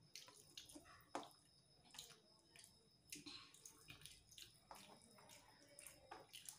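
Faint eating sounds of rice being eaten by hand from a steel plate: scattered short clicks and smacks of chewing and of fingers working the rice.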